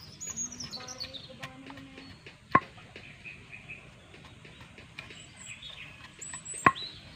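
Two sharp wooden knocks about four seconds apart as an axe on a freshly fitted bamboo handle is knocked down against wood to seat the head. Birds chirp faintly in between.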